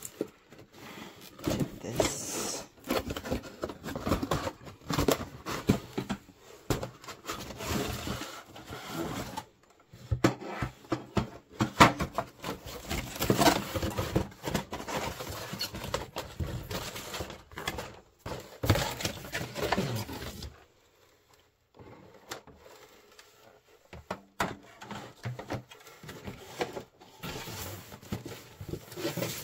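Cardboard toy-box packaging being handled: flaps folded back and cardboard inserts and printed card sheets slid out and set down, with irregular scrapes, rustles and light knocks. A short near-quiet pause comes about two-thirds of the way through.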